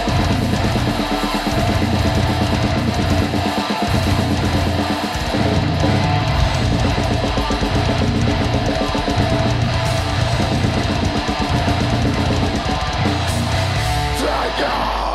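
A live heavy metal band playing loud: distorted electric guitars over fast, pounding drum kit, dense and steady throughout, breaking off at the very end.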